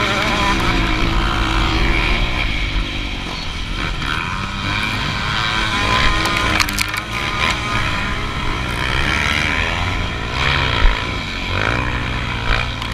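Motocross bike engines revving under race load, the rider's own bike closest, their pitch rising and falling as the throttle opens and closes, over a heavy low rumble. A few sharp clicks come about six to seven seconds in.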